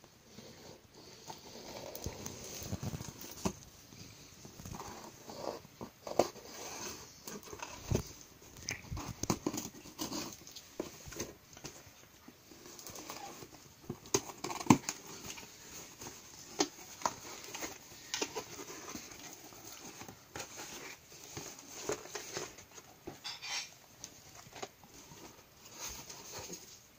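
A cardboard parcel being cut open with a small folding knife and unpacked by hand: scattered scrapes, taps and rustles of cardboard and packing tape, with a sharper knock about halfway through, then a rigid plastic blister pack being handled.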